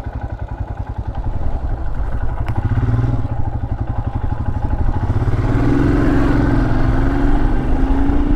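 Royal Enfield Himalayan's 411 cc single-cylinder engine running while riding. It gets louder about a second in, and its note climbs steadily through the second half as the bike accelerates.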